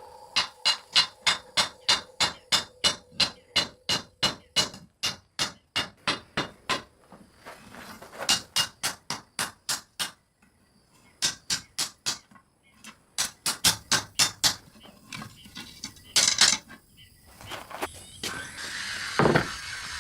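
Hand hammer striking hot steel on an anvil while forging a knife blade, with evenly spaced blows of about three to four a second in several runs with short pauses between them. A couple of other louder sounds follow near the end.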